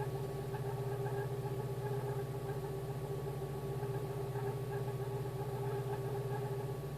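VW Polo 86C's AAU four-cylinder petrol engine running steadily at an even pitch, with no revving. This is its running sound after the faulty Hall sender in the ignition was replaced.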